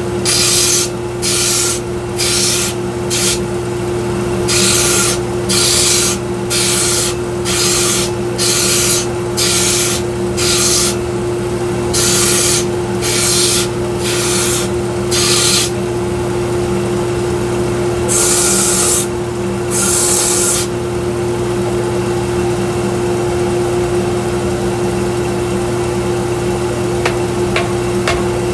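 A 1x42 belt sander runs steadily while a wooden axe handle is pressed against the belt in many short sanding passes, about one a second, to fit the axe head. Two longer passes follow, then the sander runs on with nothing against the belt for the last several seconds.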